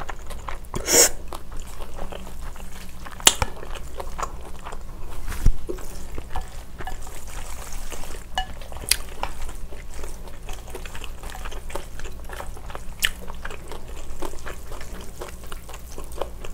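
Close-miked eating sounds: chewing a mouthful of spicy noodles, then wooden chopsticks stirring and lifting sauce-coated bibim-guksu noodles in a glass bowl, with wet squishing and scattered sharp clicks.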